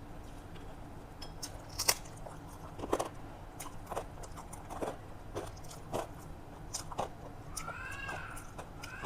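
Close-miked eating: chewing with crisp crunching bites about once a second, the loudest about two seconds in. Near the end comes a short high-pitched sound that bends in pitch.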